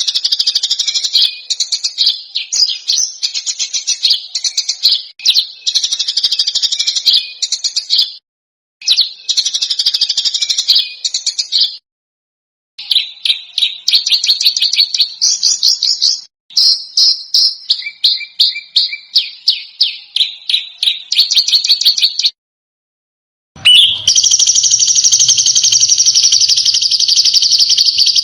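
A spliced recording of small songbirds giving rapid, harsh, high-pitched chirps and trills. The recording cuts out abruptly several times. Near the end it switches to one continuous dense trill with a faint low hum under it.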